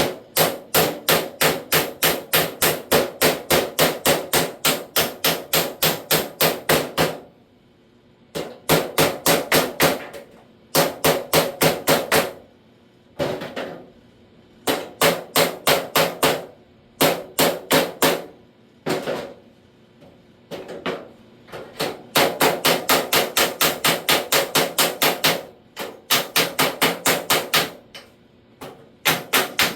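Steel body hammer striking sheet steel in quick runs of ringing blows, about four a second, with short pauses between runs: the edge of a new lower door skin being knocked down over the door's inner panel.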